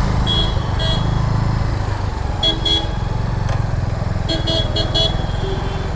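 A motorcycle's engine and road rumble running steadily underneath short vehicle horn toots in traffic: two quick beeps early, two more about two and a half seconds in, and a burst of four about four seconds in.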